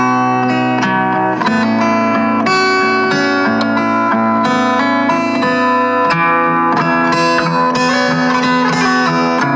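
Instrumental background music: a steady stream of overlapping, sustained notes.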